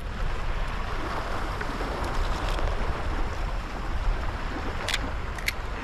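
Steady outdoor wind noise, a low rumble with hiss, with two short sharp clicks near the end.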